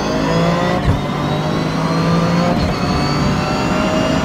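Cabin sound of a Toyota GR Yaris's turbocharged 1.6-litre three-cylinder engine accelerating hard, its pitch climbing steadily. A sharp clunk about a second in is the sequential gearbox's dog-gear shift.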